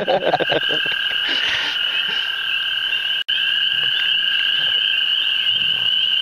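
A dense chorus of frogs calling from the creek: a steady, unbroken wall of high-pitched calls.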